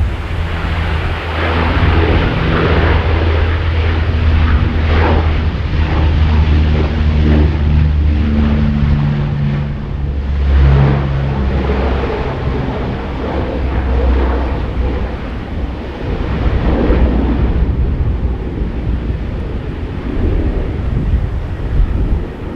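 Four-engine turboprop military aircraft running, a loud low propeller hum with shifting pitch steps over a broad rushing noise, with wind buffeting the microphone.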